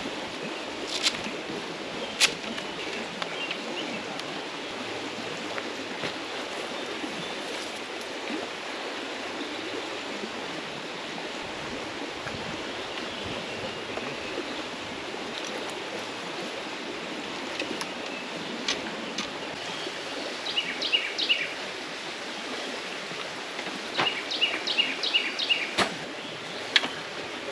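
Steady outdoor water noise, an even wash with no pattern, broken by a few sharp knocks early on and two short runs of quick high ticks near the end.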